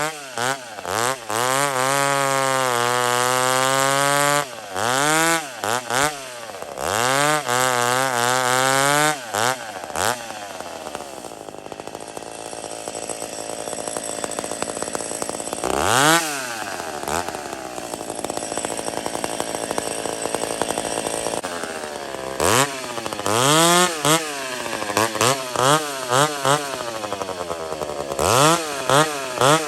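A big McCulloch two-stroke chainsaw revving up and down in repeated bursts, with a longer stretch of steadier running in the middle.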